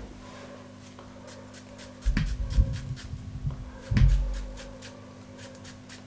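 Dull low thumps and rubbing as a ripe banana is sliced in the hand with a kitchen knife and the rounds drop onto a plate: a short cluster about two seconds in and a single louder thump near four seconds, over a faint steady hum.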